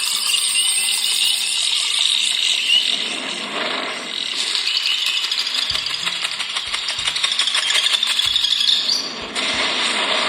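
Soundtrack of the OnePlus 7T's preinstalled demo video playing through the phone's own speakers. It is a thin, treble-heavy mix of shifting tones and clicks with little bass.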